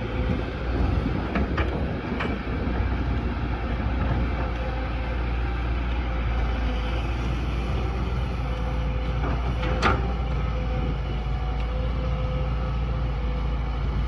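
A large excavator's diesel engine running steadily at working revs, with a few short metal clanks from the machine, the sharpest about ten seconds in.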